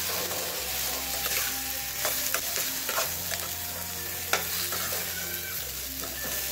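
Metal spoon stirring sliced onions and spices frying in a kadai, with irregular clicks and scrapes of the spoon against the pan over a light sizzle.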